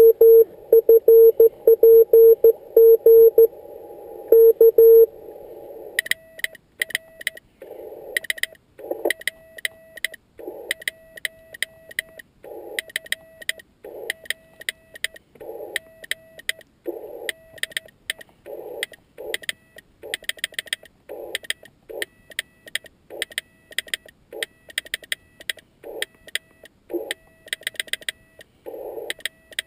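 Morse code on a transceiver: a loud steady tone keyed on and off for about five seconds, then a homemade Morse key built from bicycle parts clicking in sending rhythm, with a fainter sidetone under the clicks.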